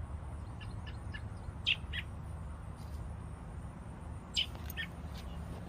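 Small bird chirping: short, high chirps in pairs, about two seconds in and again near the end, with fainter ones early on, over a steady low background rumble.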